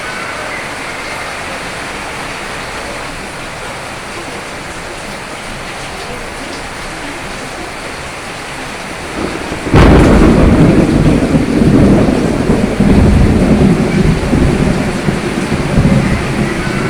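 Steady rain falling, then about ten seconds in a sudden crack of thunder that turns into loud, rolling low rumbles under the rain.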